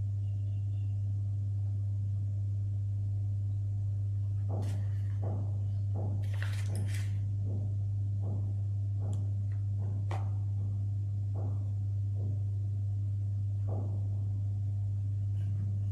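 A steady low electrical hum, with a scattering of short, irregular taps and rustles from a small cardboard product box being handled.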